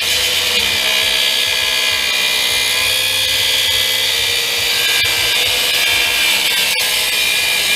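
Power tool cutting into the steel of a windshield wiper motor assembly: a steady, loud, high grinding whine, hot enough to give off a smell of burning steel.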